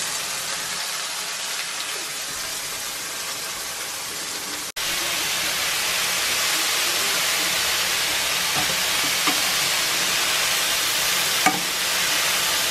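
Diced chicken, and then chicken with sliced leeks, sizzling steadily in a hot frying pan; the sizzle breaks off for an instant near the middle. A few light taps of a slotted spatula stirring the pan come in the second half.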